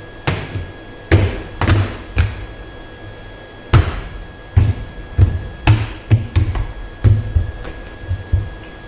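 Plastic pail lid being handled and pressed back down onto a white plastic bucket by hand: a run of about a dozen knocks and thumps at irregular spacing, a few early on and then a quicker cluster from about four seconds in.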